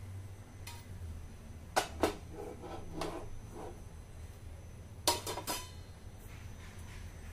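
Kitchen utensils knocking and clinking on dishes: a quick pair of sharp clinks about two seconds in, another a second later, and a group of three about five seconds in.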